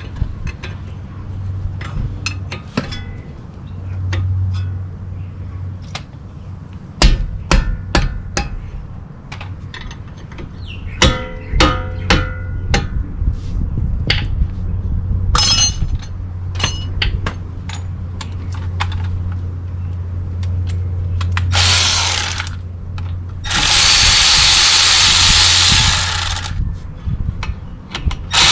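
Metal tools clinking and knocking against the front brake parts, then near the end a power tool runs twice, about two and three seconds, while the brake caliper bolts are being removed.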